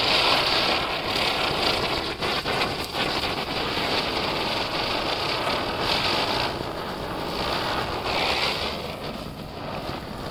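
Ground chakkar (ground spinner firecracker) spinning and spraying sparks with a loud, steady hiss that swells and eases several times as it burns.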